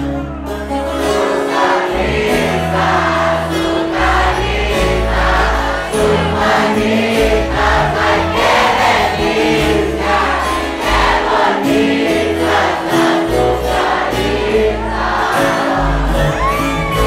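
Live band playing guitars over a steady bass line, with a large crowd singing along.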